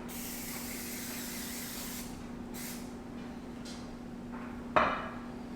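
Aerosol cooking spray hissing into a cast iron corn-shaped cornbread pan: one long spray of about two seconds, then a few short bursts. A clank near the end.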